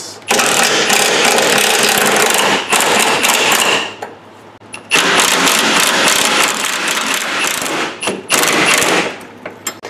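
Impact wrench hammering as it loosens the front cradle bolts through a socket and long extension, in three runs: two of about three seconds each and a short burst near the end.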